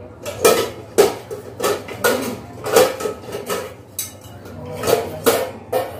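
Stainless steel kitchen vessels clanking, about a dozen irregular knocks and clinks of metal on metal as a steel plate and pot are handled.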